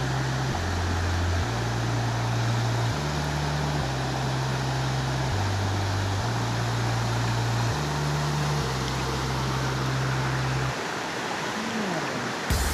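Mountain river running fast over boulders: a steady, loud rush of white water. Underneath, low bass notes step to a new pitch about every second and stop shortly before the end.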